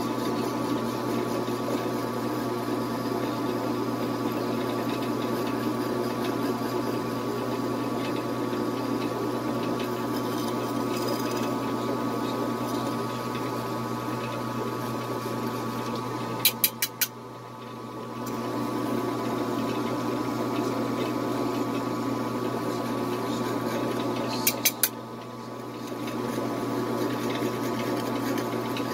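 Metal lathe running steadily, with a low hum and a higher whine. Twice, a quick run of about three clicks is followed by the sound dropping for a second or so.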